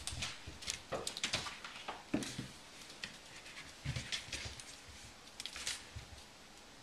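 A cat moving about on a ceramic tile floor: irregular taps, clicks and low thumps of paws and claws, busiest in the first two and a half seconds, then sparse.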